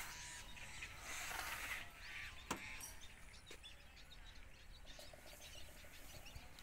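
Quiet rural outdoor ambience: a steady low background noise with faint bird chirps and a few scattered knocks, about two and a half seconds in and again near the middle.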